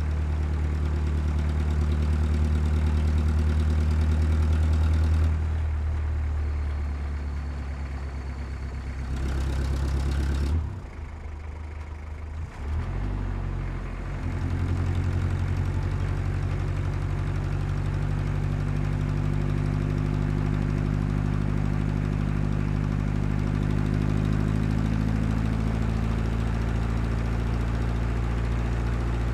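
Large truck's diesel engine running steadily, with a low, even hum; about ten seconds in it fades and falters for a few seconds, then runs steady again.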